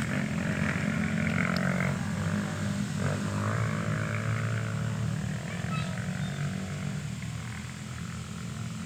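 Off-road rally motorcycle engines running as the bikes ride past, their pitch swinging up and down about three seconds in, then slowly fading into the distance.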